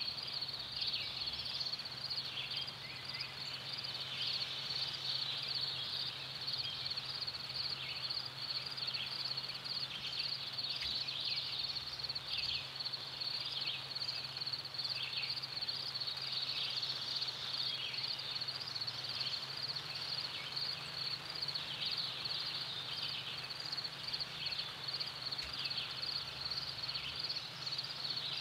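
Outdoor chorus of calling animals: a steady high-pitched drone with short falling chirps every second or so over it, and a low steady hum underneath.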